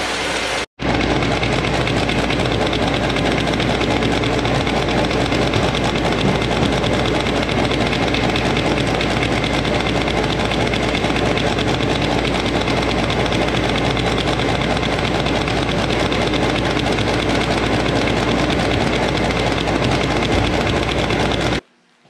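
MBO T49 buckle paper folder running at full speed on a letter fold: a loud, steady, even machine noise of its motors, rollers and belts with sheets streaming through. It breaks off briefly under a second in and stops abruptly just before the end.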